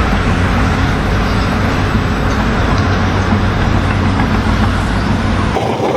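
A vehicle running, a steady engine hum with road noise. It cuts off abruptly near the end.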